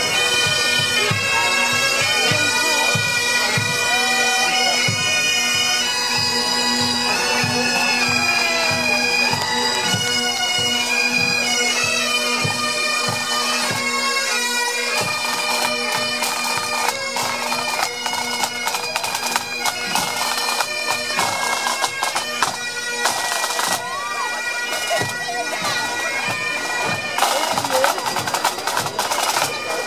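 Pipe band playing: Highland bagpipes sounding their steady drone under the chanter melody, with bass drum beating regularly and snare drums growing more prominent in the second half.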